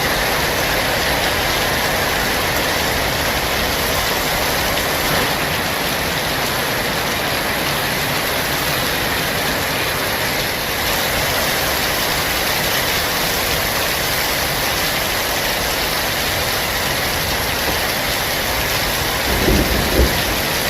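Heavy rain falling steadily, an even hiss. A couple of brief low bumps near the end.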